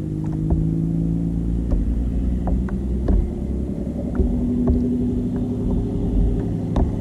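A boat engine drones steadily as several held low tones, which shift in pitch about four seconds in, over a low rumble of wind on the microphone. Faint ticks come now and then.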